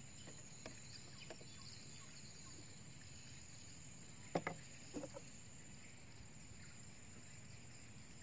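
Quiet riverside ambience with a faint, steady, high insect drone. Two short, sharp sounds break in about four and a half and five seconds in.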